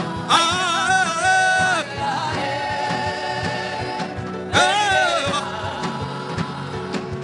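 Gospel worship chant: a voice sings two long, wavering phrases over held keyboard chords and a steady beat.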